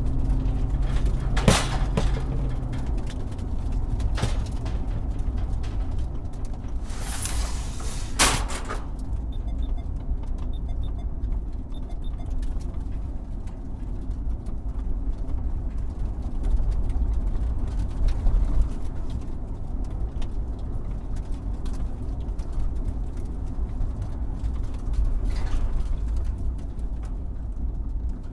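Excavator working, a steady low rumble with clicks and creaks of its moving parts. A rushing noise lasts about a second and a half, starting about seven seconds in.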